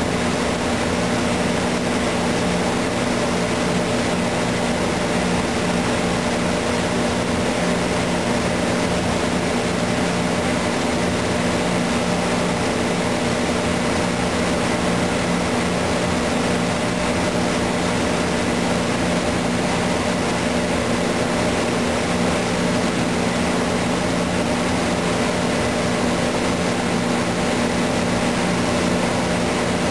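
A machine running with a steady hum: a low drone with a few fixed tones above it over an even rush of noise, like a ventilation fan motor.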